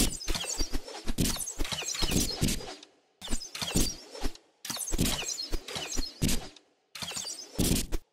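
Sound effects of volleys of arrows striking archery targets: rapid series of sharp thuds and cracks in bursts of one to three seconds, with short pauses between the bursts.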